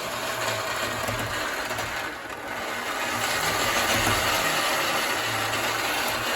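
A motor-driven machine running steadily: a low hum under an even rushing noise, growing a little louder about three seconds in.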